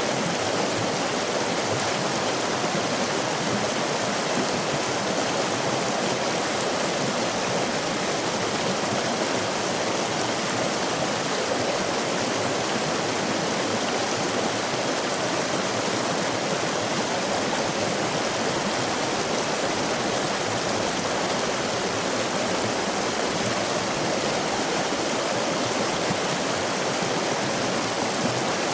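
Stream water running over rocks in a steady, even rush without breaks.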